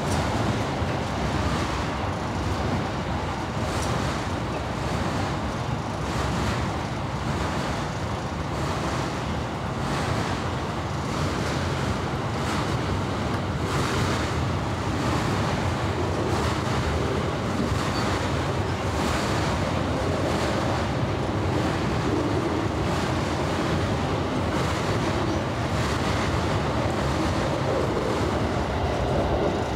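Steady running noise of a train heard from inside the carriage as it crosses a steel truss bridge: an even rumble of wheels on rail, with faint swishes every second or two.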